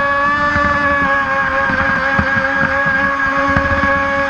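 Brushless electric motor of an RC mono racing boat running at steady speed, a high whine holding nearly one pitch, over rough rushing noise of water and wind.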